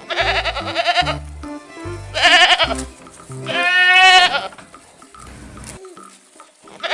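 Three loud, wavering bleats from a goat or sheep, the third the longest, with another starting at the end, over background music with a bass line.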